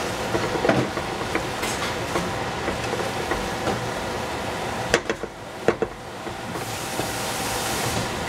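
Cabbage and other vegetables sizzling as they stir-fry in a pan, with a spatula clicking and scraping against the pan now and then. Two sharp knocks come about five seconds in; the sizzle then drops for a moment and builds back up.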